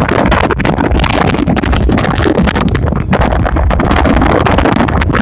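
Wind buffeting and crackling on a phone's microphone, with the rumble of a moving vehicle underneath.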